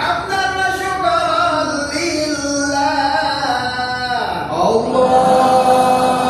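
A man's voice chanting Arabic in long, drawn-out melodic notes with ornamented pitch turns, in the style of Quran recitation, with a short break about four seconds in.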